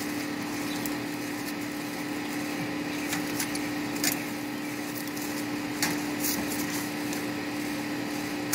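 A steady machine-like hum with one constant tone, under a few light clicks of metal tongs on the grill grate as ears of corn are moved.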